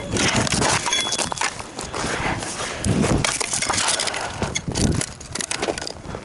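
Dry wood crunching and cracking as it is broken up by hand for a campfire, with a few heavier knocks.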